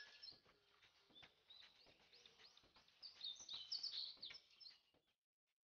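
Faint bird chirps over near silence: a few short calls at the start and a busier run of chirping about three to four and a half seconds in.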